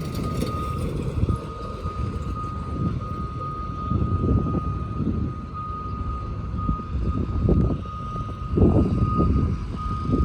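Diesel engines of heavy construction machinery running, with surges of low rumble about four and eight seconds in. A high back-up alarm tone sounds steadily throughout.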